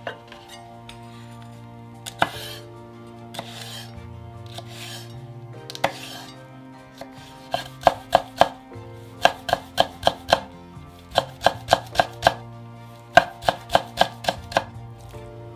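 Kitchen knife chopping on a cutting board: a few single cuts and scrapes at first, then about halfway in four quick runs of five or six strokes each. Soft background music plays underneath.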